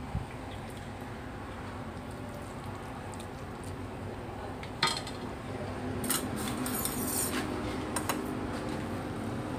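Kitchen utensils clinking against a ceramic bowl and a steel pot while the bowl is served: one sharp clink about five seconds in, then a quick cluster of lighter clinks and one more near the end. A steady low hum runs underneath.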